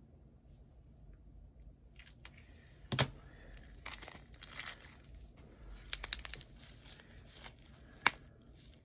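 Plastic packaging of acrylic paint pens crinkling and tearing as it is cut open with scissors, with a few sharp clicks: one about three seconds in, two close together near six seconds, and another near eight.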